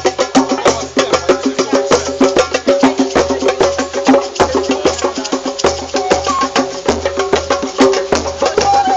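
Improvised group music: fast, dense percussion strikes over held pitched tones and a low pulsing drone.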